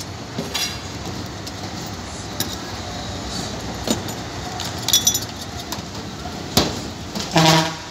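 Metal tools clinking and knocking as they are handled in a bucket, over a steady hum of street traffic; a ringing clink about five seconds in and a sharp knock near the end, followed by a short pitched sound.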